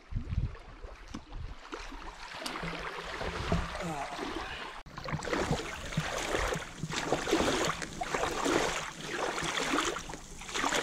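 Lake water washing and splashing along the side of a moving canoe, heard from a microphone right at the waterline, coming in surges about once a second. In the first half, low gusty rumbles of wind on the microphone sit under the water sound.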